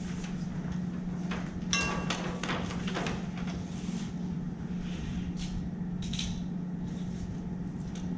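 Small objects handled on a table and at a flipchart: scattered clicks, knocks and rustles, one sharper click with a short ring about two seconds in, over a steady low hum.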